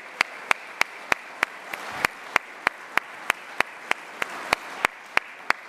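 Audience applauding in a hall, with one clapper's sharp, evenly timed claps standing out about three times a second.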